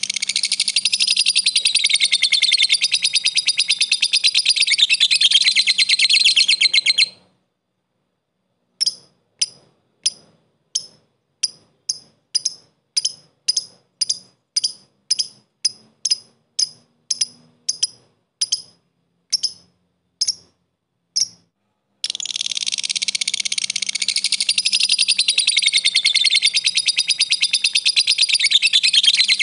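Lovebird calling in its 'ngekek' style: a long, fast, unbroken chattering trill lasting about seven seconds. After a short pause comes a run of about twenty separate sharp ticking chirps at roughly two a second, the 'ngetik' call. The continuous trill starts again about 22 seconds in.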